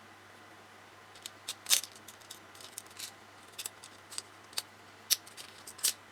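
Small plastic parts of a Tamiya Mini 4WD kit clicking and snapping as they are handled and fitted together by hand: a dozen or so irregular sharp clicks starting about a second in, the loudest near the start and near the end.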